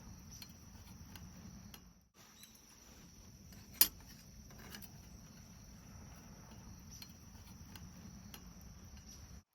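Small camping gas burner running steadily with a low rush while it heats a bare mini iron plate to season it. Crickets chirp steadily in the background, with light ticks and one sharp click about four seconds in.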